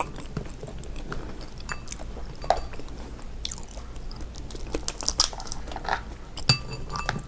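Close-up eating sounds from a seafood boil: chewing and biting with scattered sharp crunches and clicks, a few louder ones about two and a half, five and six and a half seconds in.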